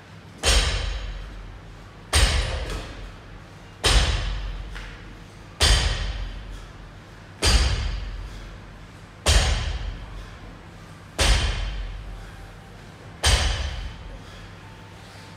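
Barbell loaded with bumper plates thudding on the floor on each deadlift rep. Eight heavy thuds come at an even pace of about one every two seconds, each dying away over about a second.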